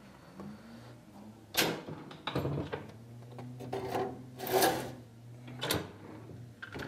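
Oven door of an old cast-iron Malleable range being handled and a sheet pan with a wire rack slid in onto the oven racks: a run of metal clanks and short scrapes, the loudest about halfway through, with the door shut near the end.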